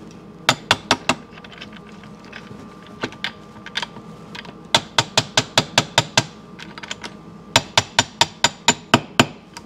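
A plastic-faced mallet taps a transmission shaft to seat it, a tap fit, in the aluminium case half of a 1972 Yamaha 250 MX. There are a few sharp taps about half a second in, then two quick runs of light taps at about six or seven a second.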